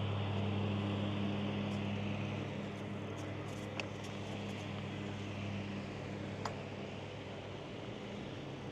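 A vehicle engine running with a steady low hum that slowly fades, over outdoor background noise and a few faint clicks.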